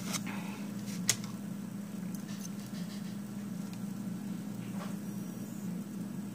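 A few light clicks and taps as metal nail-stamping plates and a stamper are handled, the sharpest about a second in, over a steady low hum.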